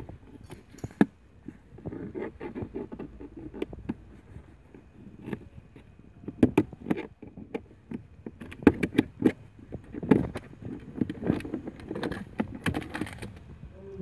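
Plastic trim cover being worked loose from a car's centre console by hand: irregular clicks, knocks and rattles of plastic as its clips let go, sharper and more frequent in the second half.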